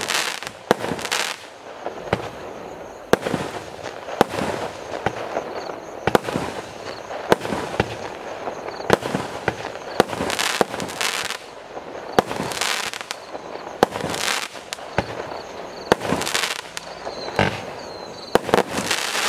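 Consumer firework battery (multi-shot cake) firing shot after shot: a sharp report roughly every second, with hissing and crackling from the bursting shells between them.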